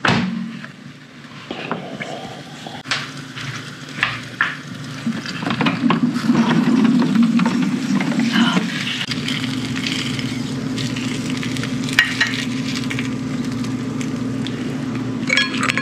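Chicken thighs in tikka masala sauce sizzling in a hot baking dish just out of the oven, over a steady low hum. Scattered clicks and scrapes of a fork against the ceramic dish.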